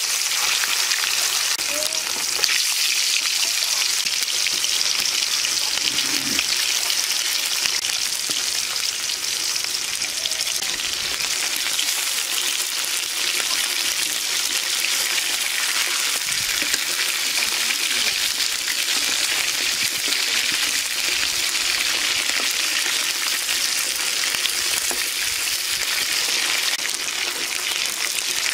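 Garfish steaks sizzling steadily as they fry in hot oil in a black iron wok, with a metal spatula now and then knocking and scraping as it turns the pieces.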